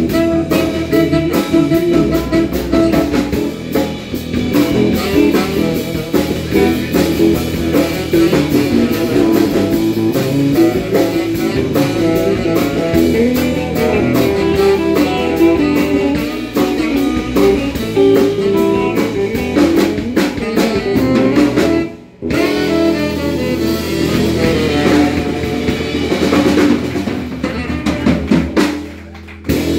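Live blues band playing: electric guitar, electric bass and a drum kit, with steady drum hits under the guitar. The whole band stops for a moment about two-thirds of the way through, then comes back in, and the sound drops away near the end.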